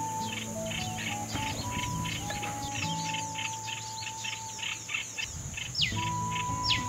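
Wild birds chirping rapidly, several calls a second, over a steady high-pitched insect drone, with two falling whistled calls near the end.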